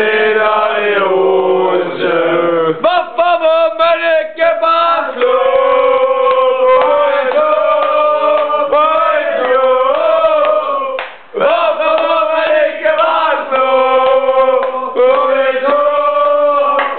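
A man singing a mocking football song loudly, chant-style, holding long notes, with a brief break about eleven seconds in.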